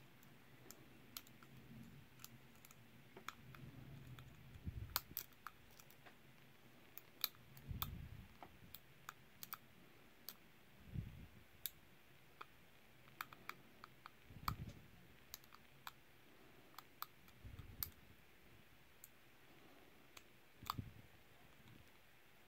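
Faint, irregular clicks of a steel hook pick and tension wrench working the pin tumblers of a Burg Wächter Circle 21/60 disc padlock during single-pin picking. Now and then there is a soft low thump.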